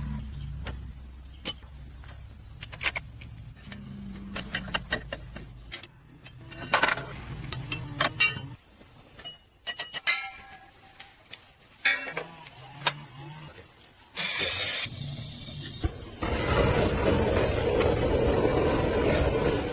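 Scattered sharp metal clicks and knocks of hand work, then about sixteen seconds in an engine starts up and keeps running steadily and loudly.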